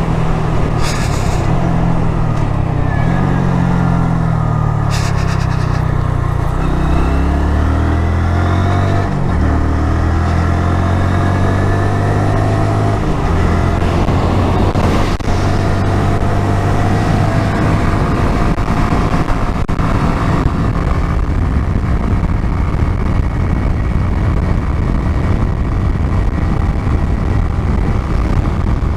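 Honda MSX125SF's single-cylinder engine running on the move, with wind and road rush. The engine note falls over the first several seconds, changes pitch in a couple of steps, then holds steady.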